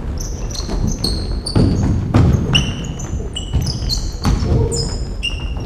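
Basketball bouncing on a hardwood gym floor, with sneakers squeaking as players cut and stop. There are many short, high squeaks and a few heavier thumps of the ball.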